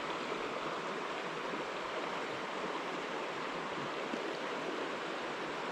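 Steady rush of a small mountain stream flowing over rocks.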